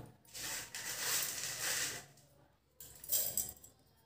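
Crisp dried beetroot flakes rustling and rattling as they are scooped by hand and dropped into a stainless-steel mixer-grinder jar, in a spell of about two seconds and a shorter one near the end.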